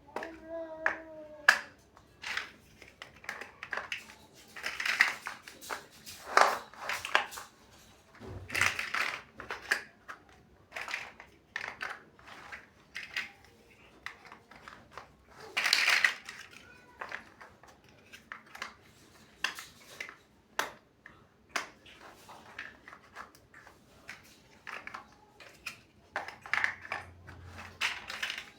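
Plastic building bricks being handled and pressed together: irregular sharp clicks and light clatters, some louder snaps among them.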